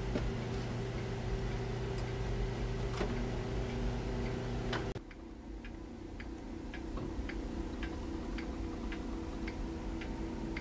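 Steady hum of a workshop fume hood fan that cuts off abruptly about halfway through. After it comes a quieter background with evenly spaced light ticking, about two to three ticks a second.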